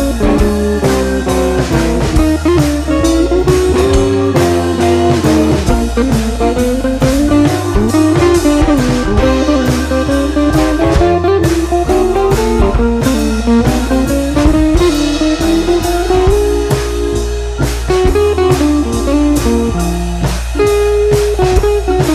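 Background music: a blues-style guitar tune with a steady drum beat.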